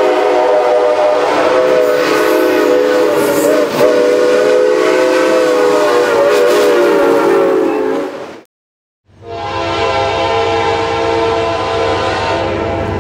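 Diesel locomotive's multi-chime air horn blowing one long chord that wavers slightly in pitch, cut off abruptly about eight seconds in. After a moment of silence a second horn chord sounds over a low rumble.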